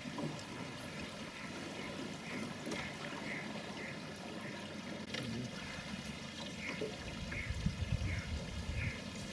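Steady wash and trickle of river water around the boat, with short high chirps repeating about twice a second. A louder low rumble comes in near the end.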